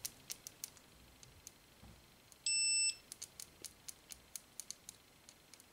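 UNI-T UT61B multimeter in continuity mode, its probe tips tapped together again and again with light clicks. Only once, about two and a half seconds in, does its buzzer give a short high beep of about half a second. The continuity test is slow, so most brief contacts get no beep.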